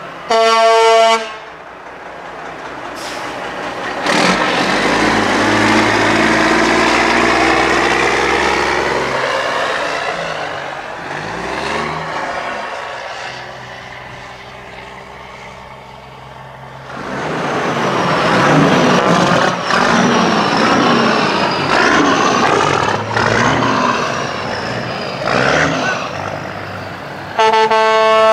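American semi-truck air horn blasting for about a second near the start, then big diesel truck engines pulling past, their pitch rising and dropping again and again as they accelerate and change gear. The air horn sounds again at the very end.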